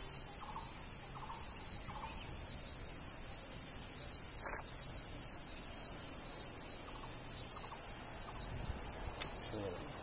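Steady, high-pitched, unbroken drone of an insect chorus, with a few faint short bird calls behind it.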